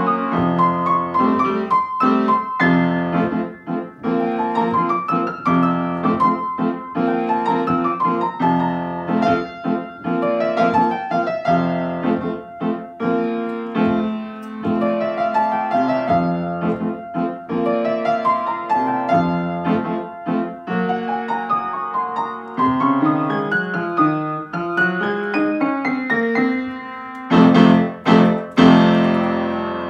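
Upright acoustic piano played solo: a flowing piece with quick running melody lines over repeated lower notes. Near the end come a few loud, heavily struck chords that ring on.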